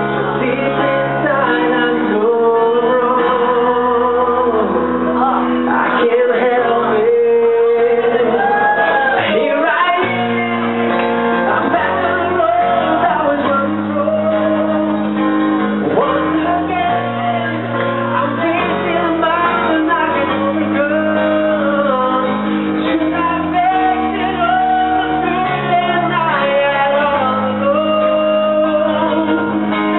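Man singing a song into a handheld microphone over instrumental accompaniment of held chords, with guitar.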